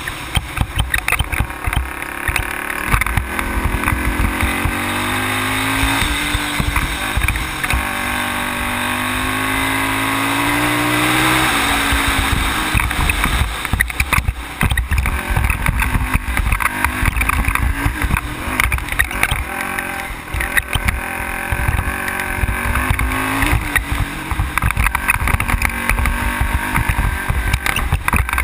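ATV engine running under way on a gravel road, its pitch climbing as it accelerates and dropping at each shift, twice in the first half and again near the end. Heavy buffeting and rattling noise from the rough ride runs under it.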